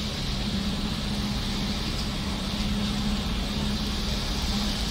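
Ford Figo car driving through a flooded street in heavy rain: a steady engine hum under an even hiss of rain and water.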